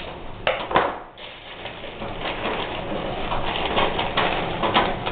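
Handling noise of wires and hand tools in a sheet-metal fluorescent light fixture: two sharp knocks just under a second in, then softer rustling and light taps.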